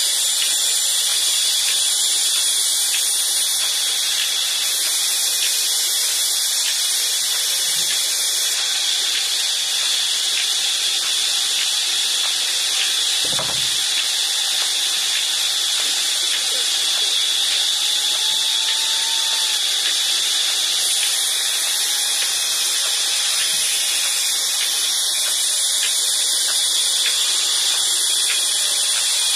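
Large vertical band saw ripping a long wooden beam: a steady, high-pitched hiss, with a single knock about halfway through.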